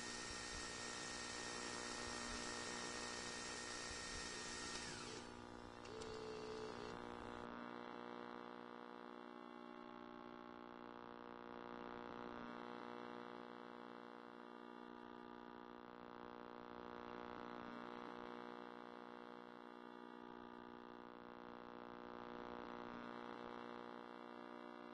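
Faint steady hum made of many held tones. A louder hiss with a high held tone lies over it until it cuts off about five seconds in.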